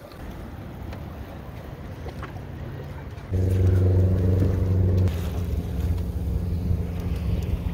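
Wind and water noise aboard a small sailing dinghy, then about three seconds in a sudden loud, low, steady hum with several pitched layers from a large car-carrier ship close by. After about two seconds it drops to a quieter drone that carries on.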